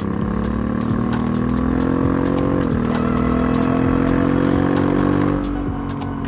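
Honda Africa Twin Adventure Sports' parallel-twin engine, on its stock exhaust, accelerating hard: the pitch climbs, drops at an upshift about two and a half seconds in, climbs again, then the engine quietens as the throttle is closed near the end.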